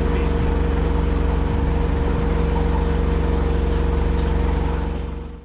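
An engine running steadily at an even speed, driving the pump that pushes liquid feed through a hose into a feeder tub.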